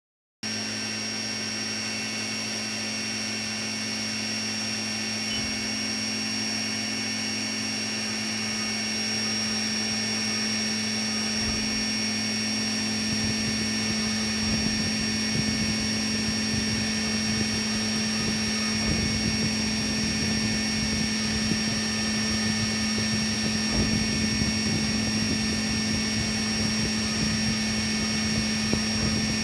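CNC milling machine running with its spindle turning, a steady high whine over a low hum. From about twelve seconds in, an irregular crackling joins it as the engraving cutter works the Zippo lighter's metal case.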